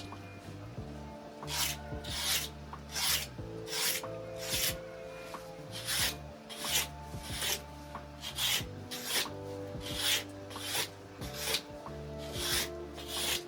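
Repeated rasping strokes of a hand tool on a surface, about three every two seconds, with background music underneath.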